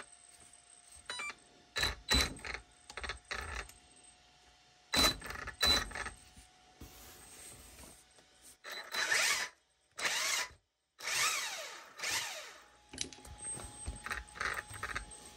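Drivetrain of an Associated 1/8-scale RC buggy being worked by hand: clicks and knocks, then several whirring sweeps that rise and fall in pitch as the wheels are spun and the car is rolled.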